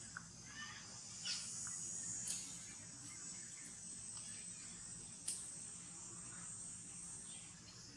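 Faint, steady high-pitched insect chorus, broken by a few short chirps, about three in all; the drone fades out near the end.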